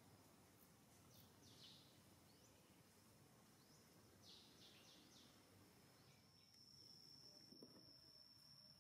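Near silence: faint outdoor ambience with a few short, high bird chirps and a steady high-pitched insect drone that grows louder about six seconds in.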